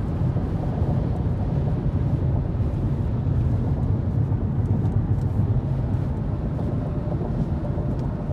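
Steady car-interior road and engine rumble while driving at speed.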